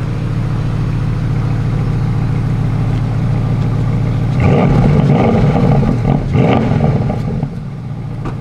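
A car engine idling, then revved in two short bursts a little past halfway before settling back to idle.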